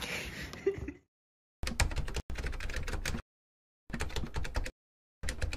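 Typing sound effect: rapid key clicks in three bursts with dead silence between them, setting the on-screen title text being typed out letter by letter. About the first second is faint room tone before it cuts to silence.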